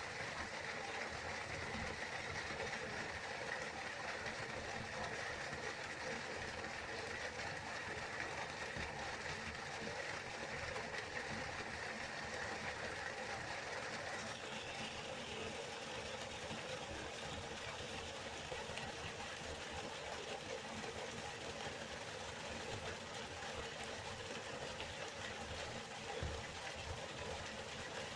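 River water flowing in a steady, continuous rush, its hiss shifting slightly brighter about halfway through.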